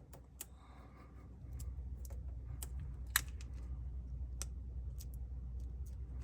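Small scattered clicks and taps of tools and fingers on a smartphone's internal parts during reassembly, with one sharper click about three seconds in. A low steady rumble comes in about a second and a half in.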